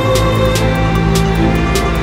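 Background music: held instrumental notes over a steady beat of about two hits a second.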